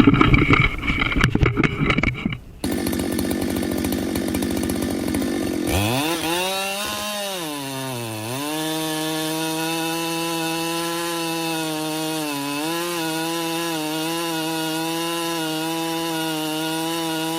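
Chainsaw engine running under load, cutting through wood. About six seconds in, its pitch sags twice as the saw bogs in the cut, then holds a steady high note.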